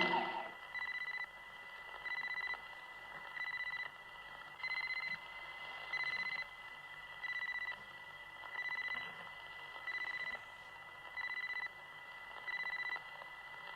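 TARDIS electronic sound effect: a high beep repeating evenly about every 1.3 seconds over a faint steady high tone.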